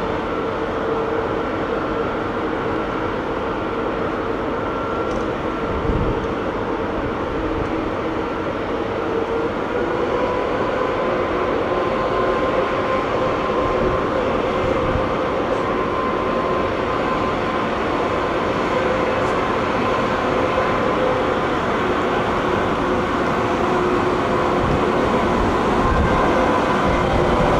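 ЭП2К electric passenger locomotive running slowly toward the listener at the head of its train. Its traction motors and cooling blowers give a steady hum and whine over a low rumble; the whine's pitch steps about ten seconds in, and the sound grows gradually louder as it comes closer.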